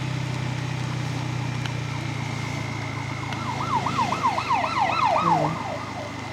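Bajaj Pulsar N250's single-cylinder engine running steadily, its note easing off about five seconds in. From about three and a half seconds a siren yelps rapidly, about five up-and-down sweeps a second, for nearly two seconds.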